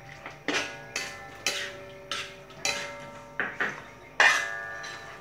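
Metal spatula clanking and scraping against a large metal wok while stir-frying duck pieces: about eight ringing clanks, roughly two a second, the loudest a little past four seconds in.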